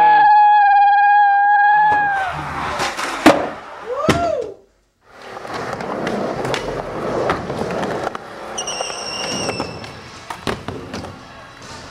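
A child's long, held scream that drops off about two seconds in. Then skateboard wheels rolling on wooden ramps, with sharp clacks of tail pops and landings and a brief high squeal about nine seconds in.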